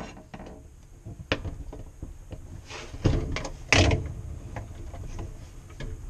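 The end of a spoon clicking and scraping against the dishwasher sump as a shaft oil seal is pushed into place around the wash-motor shaft, with scattered small clicks and two louder knocks about three seconds in and again near four.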